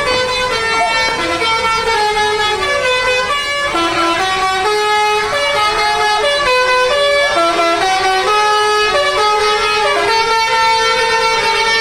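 Bus telolet horns playing a tune: several air-horn notes stepping from pitch to pitch, often sounding together, over a low rumble.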